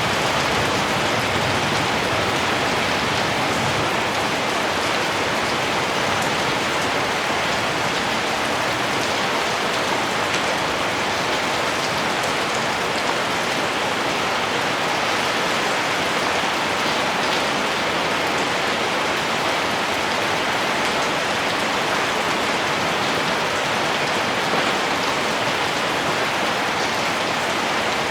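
Heavy rain falling steadily, an even, unbroken hiss with no thunder.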